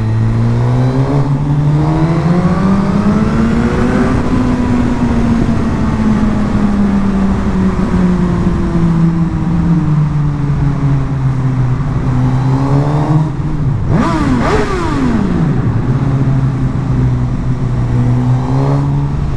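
Suzuki GSX-R 1000 K7's inline-four engine running under way. Its pitch rises over the first four seconds as it accelerates, then eases slowly down. About two-thirds of the way through it dips and climbs sharply, then runs steady.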